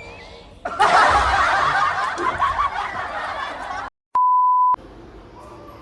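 Laughter sound effect, lasting about three seconds and cut off abruptly, followed by a short steady beep like a censor bleep.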